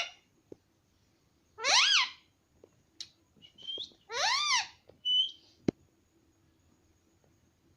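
Indian ringneck parrot giving two drawn-out calls that rise and then fall in pitch, about two and a half seconds apart, with short high whistles between and after them. A single sharp click comes near the middle.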